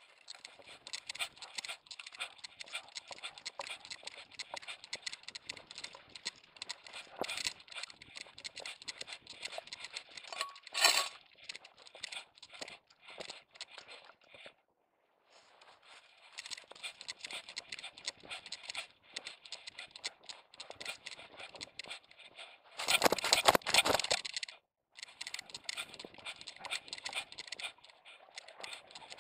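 Rattling and jangling of a dog's camera vest and its fittings, with grass brushing against it, as the dog runs through rough grass. There are louder bursts about a third of the way in and again for a second or two about three quarters through, and the sound cuts out briefly twice.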